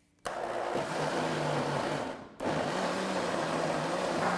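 Countertop blender motor switching on and running steadily, blending a liquid batter. It cuts out briefly about two seconds in and starts again.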